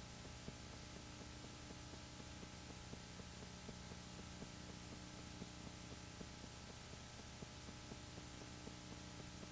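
Low, steady hum with quick, even ticking, the running sound of a Super-8 film projector during a transfer of silent film.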